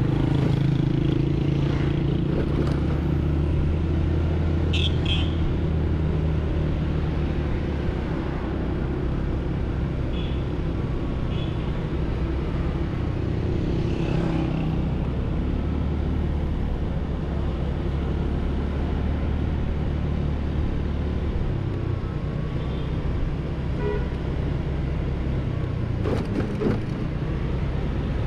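149cc Kavan S scooter's single-cylinder engine running steadily at low riding speed, a low drone mixed with the rumble of surrounding city traffic. The drone eases off about three-quarters of the way through and picks up again near the end.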